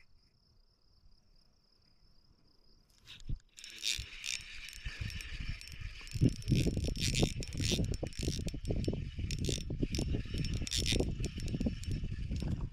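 A faint, steady, high insect drone, then from about three and a half seconds a loud, continuous rasping whir with low rumbling handling noise. The whir is typical of a spinning fishing reel being cranked in.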